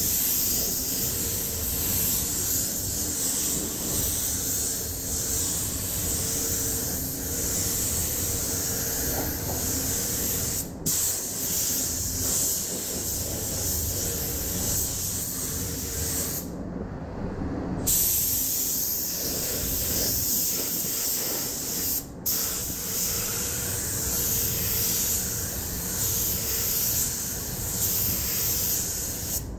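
Compressed-air paint spray gun spraying a motorcycle fuel tank, a steady loud hiss of air and atomised paint. It cuts out briefly a few times, once for about a second, as the spraying pauses.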